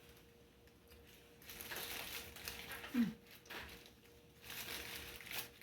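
Bursts of crinkling and rustling as a burrito is handled and eaten, three of them, with a short low hum about three seconds in.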